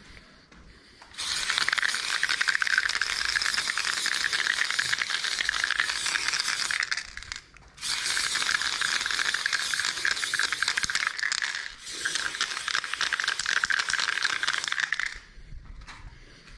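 Aerosol spray paint can spraying onto a wall in three long bursts, with a short break about halfway and another brief one a little later.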